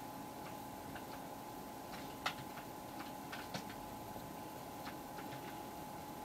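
Saltine cracker soaking in soup, crackling softly with irregular small clicks and ticks as it cracks apart; one sharper click about two seconds in. A steady faint hum runs underneath.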